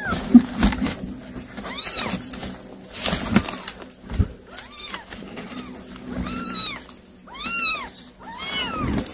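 Kittens mewing: short, high-pitched mews that rise and fall, one about two seconds in and three close together near the end, with a few light knocks and rustles between them.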